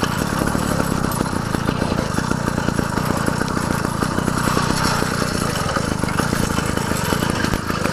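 Small gas engine of a motorized bicycle running steadily while the bike is ridden along a dirt trail.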